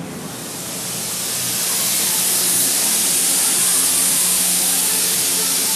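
Compressed-air paint spray gun with a cup beneath, spraying paint: a steady hiss of air and atomised paint that swells over the first couple of seconds, then holds.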